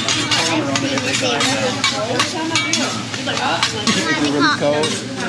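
Metal spatula scraping and clacking irregularly on a hot steel teppanyaki griddle as fried rice is stirred and chopped, over a steady sizzle, with voices in the background.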